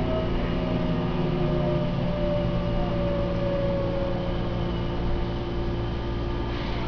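Mitsubishi GTO VVVF inverter traction motors of a Seibu 2000-series electric train car whining, several tones falling slowly as the train slows, over a steady low running rumble.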